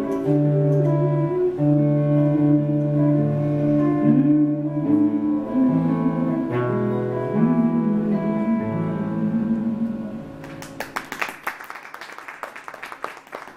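The closing bars of a live acoustic song: acoustic guitar under long held low notes and a wavering sustained note, dying away about ten seconds in. Then audience clapping starts and carries on to the end.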